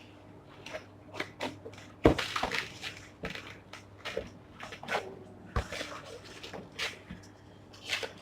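Cardboard box and its packing being opened and handled: scattered rustles, scrapes and knocks, the sharpest knock about two seconds in and another just past halfway.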